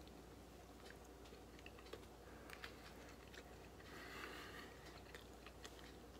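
Faint chewing of a bite of chicken sausage: soft, scattered wet mouth clicks, with a brief soft hiss about four seconds in.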